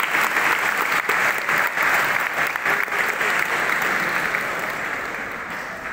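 Audience applauding, dense clapping that slowly dies away toward the end.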